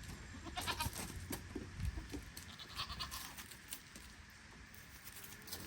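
A goat bleats around the middle, among scattered short crunching and rustling clicks.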